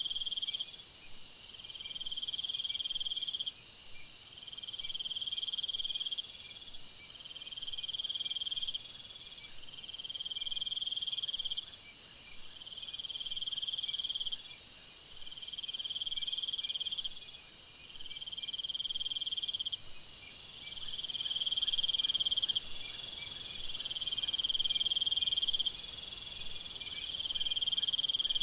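Night-time jungle insect chorus: a steady, very high-pitched drone of insects, over which another insect trills in regular pulses, each about a second long, repeating every second and a half or so.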